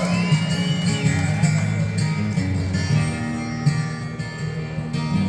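Acoustic guitar strumming and picking the instrumental intro to a country song.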